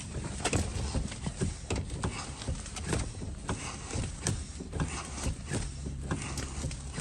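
Ford Mustang II brake pedal being pumped repeatedly, a run of clicks and knocks about two a second, to test a freshly bled brake system; the pedal is super hard.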